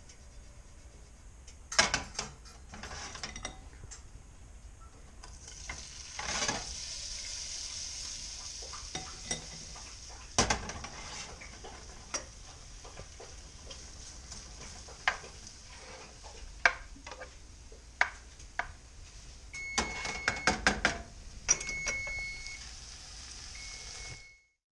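Shrimp sizzling in hot olive oil and chopped garlic in a frying pan, the sizzle starting about five or six seconds in as the shrimp go in. Clinks and knocks of a utensil against the pan run through it, with a few short high beeps near the end.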